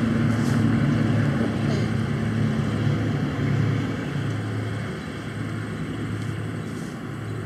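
Steady low rumble with a hiss, easing off somewhat in the second half.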